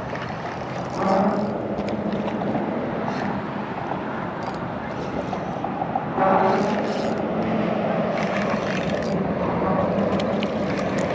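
An engine running steadily with a low hum, growing louder in two steps, about a second in and again about six seconds in.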